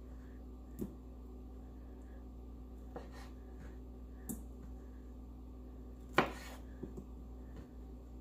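Kitchen knife cutting soft canned pineapple chunks on a wooden cutting board: a handful of short, irregular knocks of the blade against the board, the loudest about six seconds in, over a faint steady hum.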